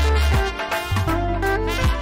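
Brass band music, with trumpets, saxophones and clarinets over a bass line of long held notes that change about once a second.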